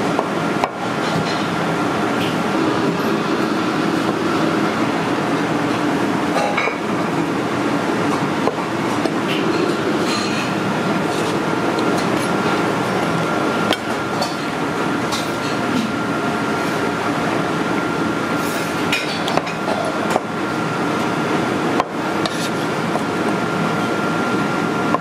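Steady loud roar of commercial kitchen equipment with a thin, steady high whine, broken by a few light knocks and clinks from tofu being cut with a cleaver on a wooden board and set on a plate.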